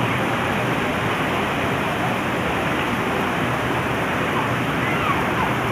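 Steady rushing of flowing water, a river or waterfall, as an even unbroken noise.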